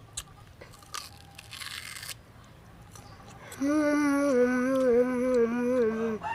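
Crunching and chewing of a raw green mango, then a long wavering hum through closed lips, stepping up and down in pitch for about two and a half seconds, from the boy eating it.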